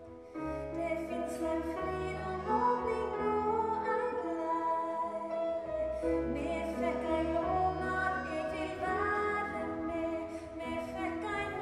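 A woman's solo voice singing a Norwegian song in long held notes, accompanied by accordion.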